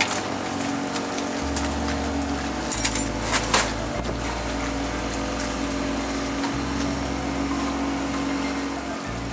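Steady drone of a sailboat's inboard engine heard inside the cabin, with a few light clinks of glasses and crockery about three seconds in.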